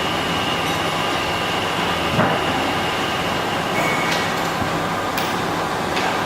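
Steady mechanical running noise with faint constant tones, broken by a few light clicks or knocks.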